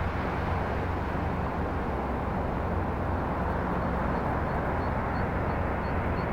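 A steady wash of outdoor noise with a low hum under it, unchanging throughout.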